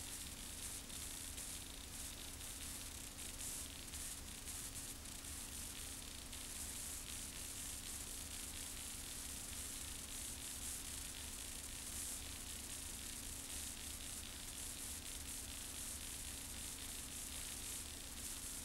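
Steady hiss with a constant low hum underneath: the background noise of an old VHS tape transfer.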